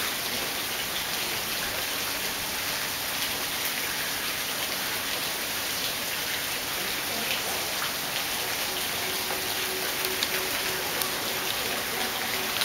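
Steady splashing of a small garden fountain: a continuous hiss of falling water, with a few faint clicks now and then.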